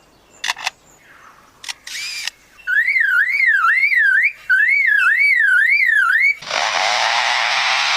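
Lyrebird mimicking human-made sounds: a few short clicks, then a warbling alarm-like tone that rises and falls about three times a second in two runs, then from about six seconds in a loud, steady rasping noise like a chainsaw.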